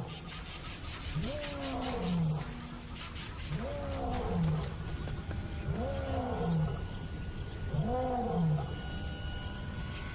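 A male lion roaring: a series of four deep roars about two and a half seconds apart, each rising then falling in pitch. It is a pride male's territorial roar, proclaiming ownership.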